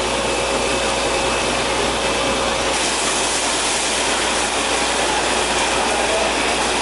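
Compressed air blasting water up out of a borewell casing pipe while the bore is flushed clean: a loud, steady rush of gushing water and spray, mixed with the running of the high-power air compressor. The hiss gets a little brighter about three seconds in.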